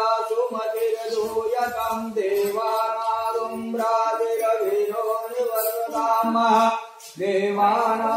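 Hindu devotional singing in a chant-like style: a voice sings sustained pitched lines with a brief pause about seven seconds in.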